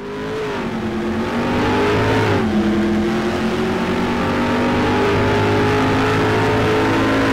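Car engine revving as it accelerates, its pitch climbing and then dropping sharply a little over two seconds in, then running steadily at high revs.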